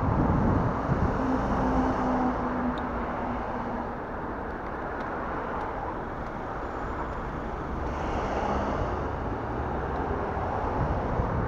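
Road traffic noise from cars moving slowly alongside, heard from the bike, mixed with wind on the microphone that is strongest in the first seconds and then eases.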